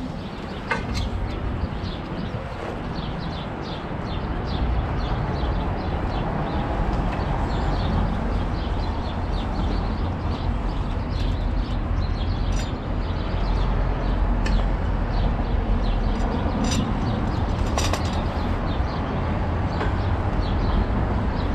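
City street noise: a steady low rumble of traffic and wind on the microphone, with many short high chirps scattered throughout and a sharp click at the very start.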